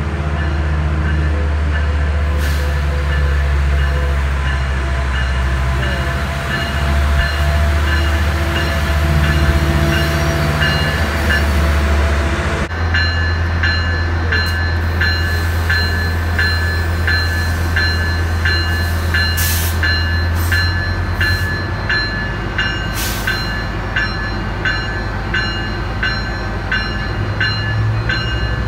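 Metrolink F125 diesel-electric locomotive running with a steady deep engine drone as the train arrives and stands at the platform. From about halfway in, a steady ringing of about two strikes a second sounds over the engine.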